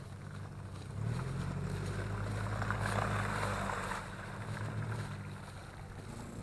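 Off-road 4x4's engine running under load, the revs rising about a second in and easing off again after about four seconds, with a rush of noise in the middle.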